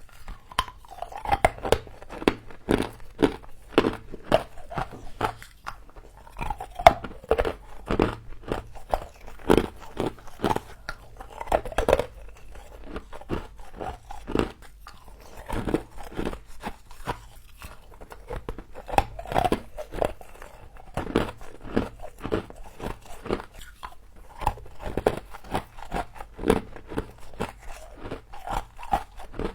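Close-up crunching of frost being bitten and chewed, with crisp, irregular crunches coming several a second and a couple of short lulls.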